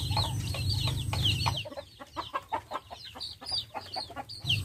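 Chickens clucking in bamboo coops, a run of short repeated calls. Under them a steady low hum drops out about a second and a half in and comes back near the end, while the clucking carries on more faintly.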